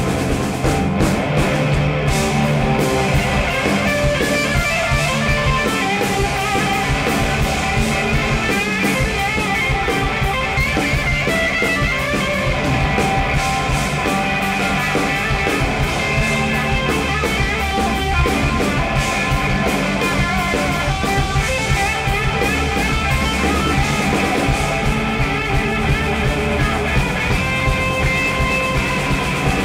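Live rock band playing at a steady, loud level: distorted electric guitars, including a Les Paul-style guitar, over bass guitar and a drum kit.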